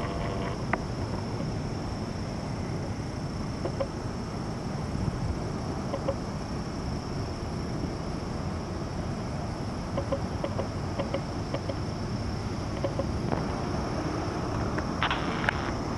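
Outdoor ambience: a steady high insect drone over a low rumble, with a few faint scattered clicks and chirps, some clustered a little before the end.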